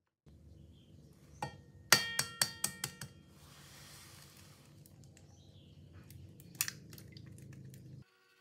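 Sharp metallic clinks on a stainless steel mixing bowl: a single tap, then a quick run of about five ringing taps, a brief soft rushing noise, and one more clink near the end.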